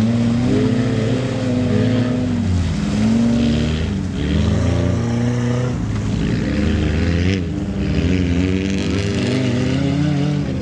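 Off-road 4x4's engine revving hard under load, its pitch climbing and dropping again and again with throttle and gear changes.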